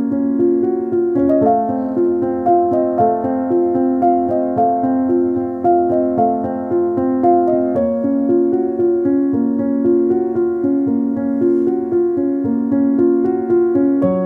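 Background piano music, a steady run of notes changing about every half second.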